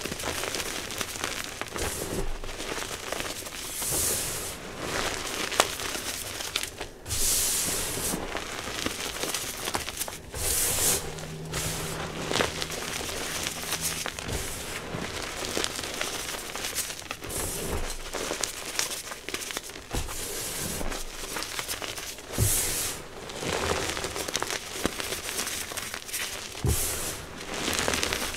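Reformed gym chalk being crushed and rubbed between two hands: a continuous gritty crumbling and crunching as the chalk breaks into powder, with louder crunches every few seconds.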